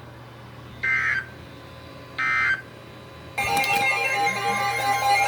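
Two EAS end-of-message data bursts, short shrill warbling digital tones a little over a second apart, marking the end of a severe thunderstorm warning. Music starts about three seconds in.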